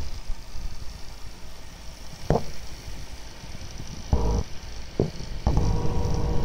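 Twin cooling fans of an MSI GeForce GTX 770 Twin Frozr graphics card running with a steady high whine, broken by a harsh buzzing rattle about four seconds in and again from about five and a half seconds on. The owner calls it a loud, horrible noise that does not sound right.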